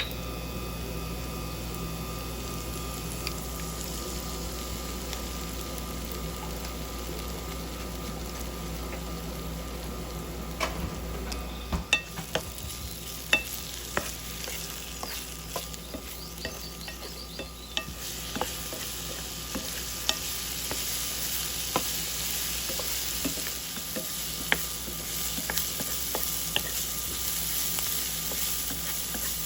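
Onions and garlic sizzling in oil in a pan while being stirred, the utensil clicking and scraping against the pan from about a third of the way in. The sizzle grows louder in the second half.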